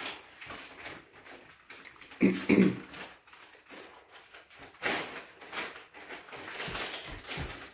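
Close-up eating sounds: chewing salad with scattered clicks of a fork against a plastic food container. A brief louder vocal sound comes about two seconds in.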